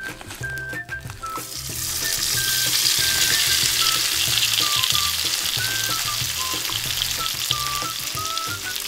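Crumb-coated cheese sticks deep-frying in hot oil in a small steel wok: a loud, dense sizzle that swells up about two seconds in as they go into the oil and keeps bubbling, with light background music underneath.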